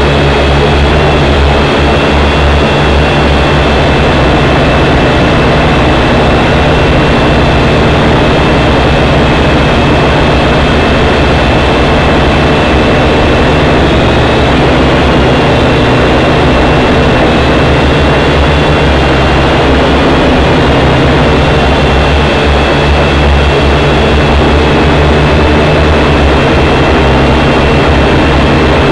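WLtoys V959 quadcopter's motors and propellers whirring in flight, heard loud and close through its own onboard camera microphone. A steady high whine rides on a dense hum, its pitch shifting slightly as the throttle changes.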